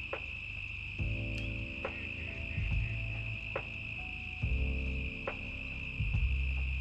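Steady high-pitched chorus of crickets, over soft background music of sustained low chords that change every second or two.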